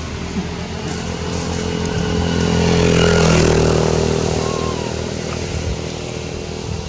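A motor engine running steadily, growing louder toward the middle and then fading again, like a vehicle passing by.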